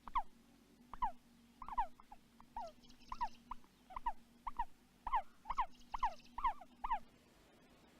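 Hatching ostrich chicks calling: a run of short squeaky peeps, each falling in pitch, about two a second, that stops about a second before the end.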